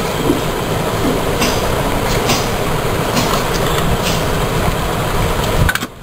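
A loud, steady rushing rumble with a few scattered clicks, cutting off abruptly near the end.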